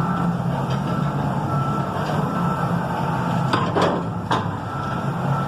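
Forklift engine running steadily, with its backup alarm sounding short high beeps at intervals and a few sharp knocks about three and a half to four and a half seconds in.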